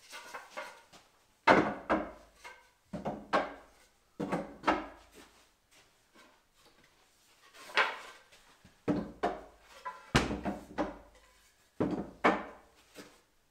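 Thick wooden bed slats knocking and clattering as they are laid one by one across the rails of an old pine bed frame: about seven sharp wooden knocks, each with a brief rattle, a second or two apart, the loudest about a second and a half in.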